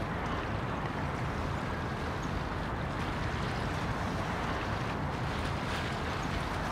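Steady harbour ambience: a continuous rushing noise of water and wind with a low rumble underneath, unchanging in level.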